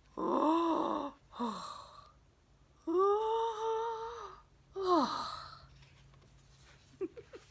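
A woman's voice acting out yawns: three drawn-out, exaggerated yawns that rise and fall in pitch, the middle one the longest.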